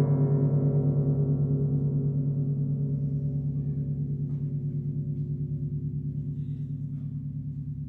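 A large Russian Orthodox church bell ringing out after its last stroke, with no further strikes: a low hum with many overtones, slowly fading and throbbing quickly as it dies away.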